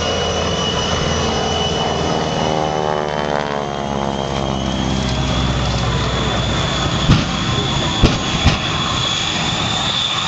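Shockwave jet truck's three Pratt & Whitney J34 jet engines running at full power: a steady, slightly rising high whine over a loud rush, with several sharp bangs from about seven seconds in as it shoots flames.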